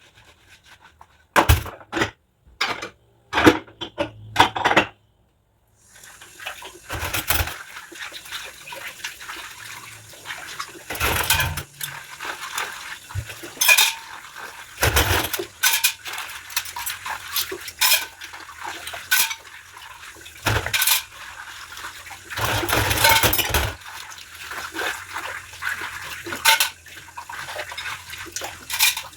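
Dishes and cutlery clinking and knocking as they are washed by hand. The first few seconds hold a run of separate sharp knocks. After a short silent gap, a steady hiss of running water starts under repeated clinks and splashy bursts.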